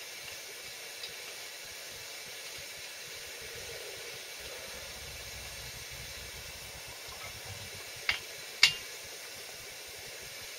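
Hot sand-coated lead fishing weight held in a pot of water on a spoon, sizzling with a steady hiss as the water boils around it and cools the lead. Two sharp clicks near the end.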